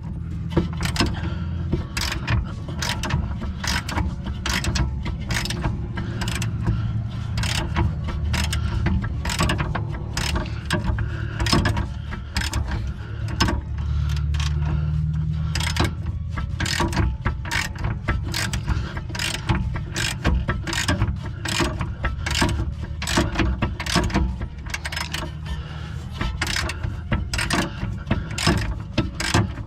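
Hand ratchet clicking in a long run of repeated strokes, about two to three clicks a second, as a 17 mm suspension bolt is run in and tightened by hand.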